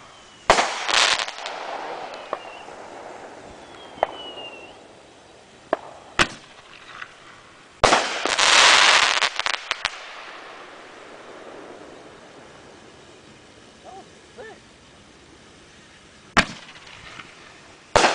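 Aerial consumer fireworks going off: sharp bangs spread over several seconds, each trailing off into a rolling echo. About eight seconds in there is a dense, loud crackling burst lasting about two seconds, and near the end two more bangs come close together.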